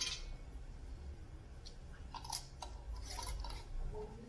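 Faint scraping and clicking of metal canning rings being screwed finger-tight onto glass jars, with a few short scrapes about two to three seconds in.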